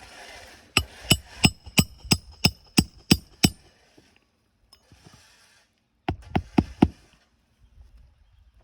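Hammer driving nails into a roofing shingle: a quick run of about nine ringing blows, about three a second, then three or four more a couple of seconds later.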